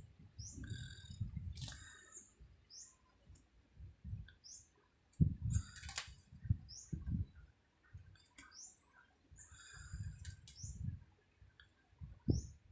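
A small bird chirping: short, high, rising chirps repeating about once a second. Underneath are low, irregular rumbles, and there is one sharp click about six seconds in.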